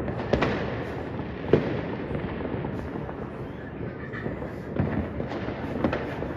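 Fireworks going off: several sharp bangs at irregular intervals over a continuous crackle of further bursts. The loudest bang comes about a second and a half in.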